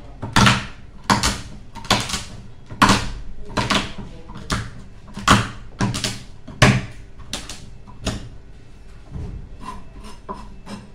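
Repeated sharp knocks, about one and a half a second, each with a short ringing tail; they turn fainter and irregular near the end.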